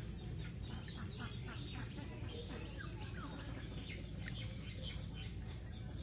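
Water sloshing and splashing in a steel bowl as a hand stirs small live fish, over a steady low hum, with a few short bird chirps about halfway through.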